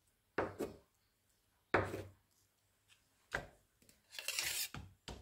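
A knife sawing through a soft cream-filled sponge roll cake and knocking on a bamboo cutting board: four short knocks spread over the first three and a half seconds, then a longer scraping rub about four seconds in.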